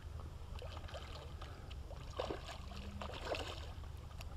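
Faint small splashes and sloshing of water as a hooked mullet thrashes at the surface on the line, a few soft splashes spread through, over a steady low wind rumble on the microphone.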